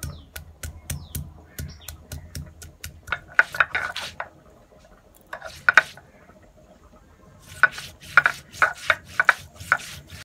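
Stone roller on a flat grinding stone (sil-nora) crushing ginger and cumin seeds: a run of sharp, even taps, then clusters of knocks. After a short quiet spell, quick knocking and scraping come as the roller is rocked back and forth to grind the paste.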